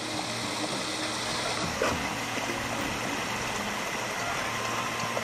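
A small stream splashing steadily over rocks: a continuous, even rush of water.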